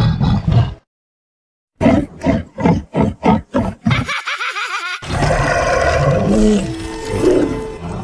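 A string of stock sound-effect clips for a cartoon villain's evil laugh, cut apart by dead silences. A short clip, then a rapid run of about eight laughing pulses that turns into a wavering high warble, then a long rough roar to the end.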